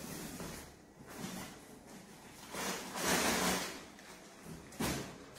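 Belongings being rummaged through in a room search: rustling handling noises, the loudest about a second long around the middle, and a sharp knock near the end.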